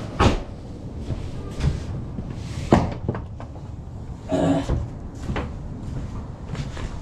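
Knocks and bangs of luggage being loaded onto a moving truck's metal ramp and floor, with two sharp bangs, about a quarter second in and just under three seconds in, and lighter knocks between them.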